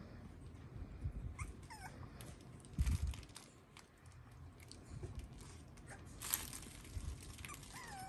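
Young puppies giving short, wavering, high-pitched whimpers, a couple about one and a half seconds in and more near the end, over irregular low thumps and scuffling as the litter moves about on the bedding.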